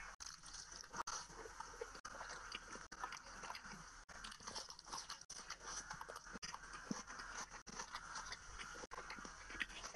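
Close-miked chewing of a mouthful of rice, curry and luchi eaten by hand, with many small crunchy clicks from the mouth.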